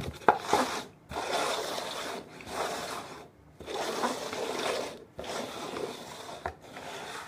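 Paper cups being slid and shuffled by hand across a textured floor mat: scraping in about five bursts with short pauses between, after a sharp tap just at the start.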